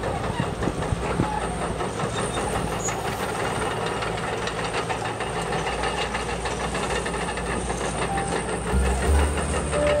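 Radio-controlled model construction trucks running: small electric motors and gearboxes whirring, with a fast, steady rattling clatter. A louder low rumble joins about nine seconds in.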